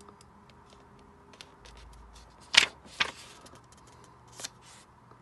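A page of a paperback book being handled and turned: light paper ticks and rustles, with two sharper paper flicks a little over halfway through.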